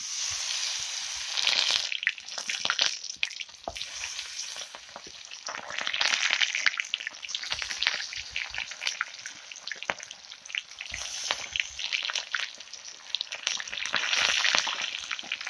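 Battered small fish deep-frying in hot oil in an iron kadhai: a dense sizzle full of fine crackles. It surges loudest as fresh pieces go into the oil, right at the start, again about six seconds in and near the end.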